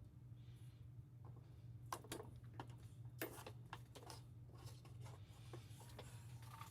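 Near silence: a low steady hum with a few faint, scattered clicks and taps.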